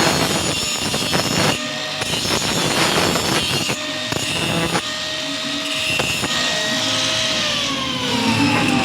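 Electric power tool running on stainless-steel pipe, with repeated sharp contacts against the metal; its whine falls steadily in pitch as it spins down near the end.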